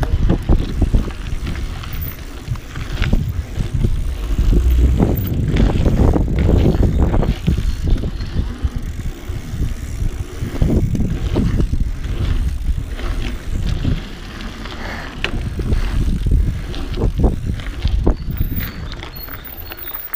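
Mountain bike riding over the rollers of a dirt pumptrack, recorded from a camera on the bike: a heavy rumble of tyres and air with frequent knocks and rattles from the bike, easing off near the end as it slows.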